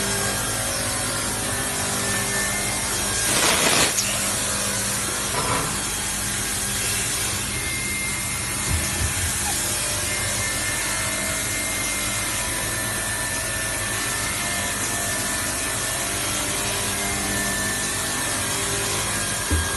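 Stainless steel utensil sanding and polishing line running steadily: a constant hum and whir of machinery with abrasive rubbing of metal against the sanding wheels. A louder rasping swell comes about three and a half seconds in, and a few light knocks follow, the last just before the end.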